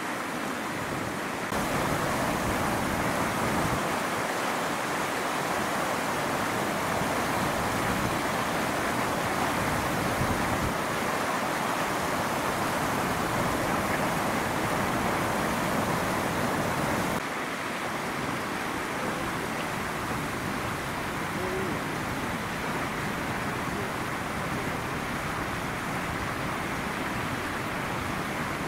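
Strong wind blowing, a steady rushing noise with no distinct events. It is louder from about a second and a half in and drops abruptly about seventeen seconds in.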